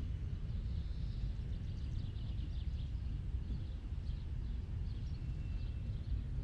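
Outdoor park ambience: a steady low rumble with small birds chirping faintly here and there.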